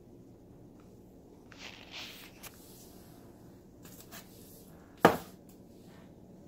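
Soft rustling and light clatter of kitchen items being handled, with one sharp knock about five seconds in.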